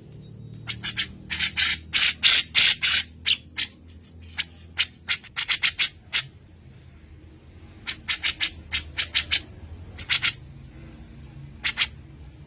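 Bird calls from a masteran recording of cucak jenggot and cililin: rapid bursts of short, harsh, chattering notes in several clusters, the densest in the first few seconds, with pauses between. A faint steady low hum runs underneath.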